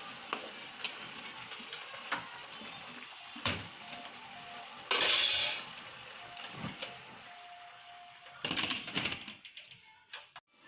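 A metal spoon clinking and scraping against a large cooking pot as tomatoes are added to mint leaves frying in oil, with two short loud hisses about five and eight and a half seconds in. Faint background music underneath.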